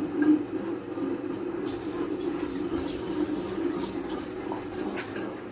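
Prestige vertical wet grinder running steadily, its stone rollers turning in the stainless steel drum and grinding batter with a continuous low hum. A spell of hiss rides over it from about two seconds in until near the end.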